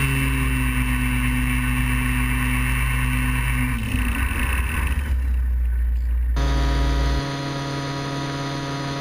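Small engine of a foot-launched powered hang glider running steadily in flight, with wind rush. About four seconds in, its note changes and a deep rumble takes over. A little past six seconds, the sound switches abruptly to a steady hum.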